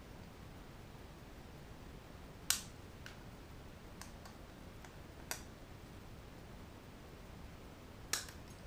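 Needle-nose pliers snipping off small protrusions on the back of a speedometer dial: three sharp snips a few seconds apart, with a couple of fainter clicks between.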